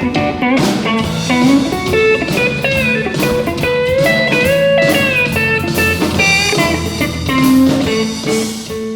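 Scheltema Sherwood Classic pedal steel guitar playing a melody of sustained notes and chords, with smooth pitch bends sliding up and down between notes.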